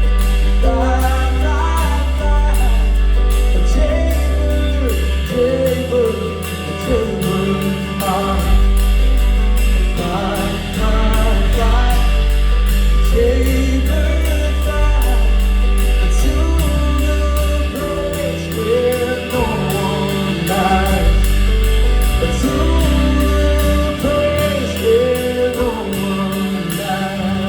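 Live band playing a slow Christian pop-rock song, with a steady beat, bass notes changing every second or two, and a wordless sung melody line.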